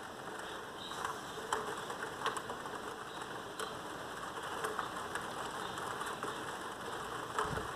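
Heavy rain falling on pavement and window: a steady hiss with scattered sharp ticks of single drops striking close by.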